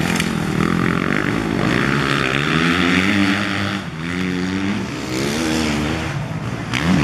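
Motocross dirt bikes racing past, engines revving, their pitch climbing and dropping several times as the riders accelerate and ease off.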